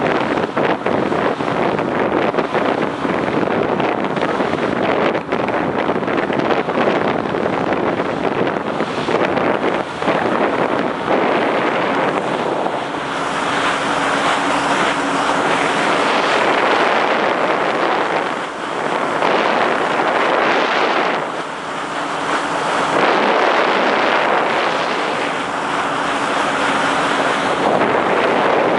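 Wind buffeting the microphone on the deck of a moving passenger ferry, over the rush of water along the hull. The noise rises and falls in gusts, and a faint steady hum comes and goes in the second half.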